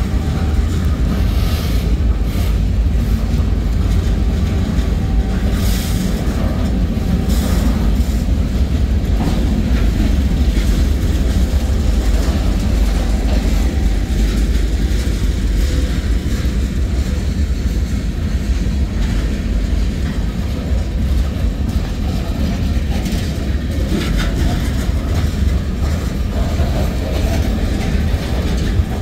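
Freight train boxcars and covered hoppers rolling past at close range: a steady low rumble of wheels on rail, with a few sharp clanks from the cars.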